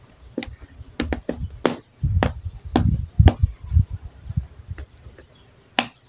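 Hands pressing and tapping the bottom cover of a Jumper EZbook X3 laptop down onto its case: a string of sharp clicks and knocks with dull thumps in the middle, one loud click near the end.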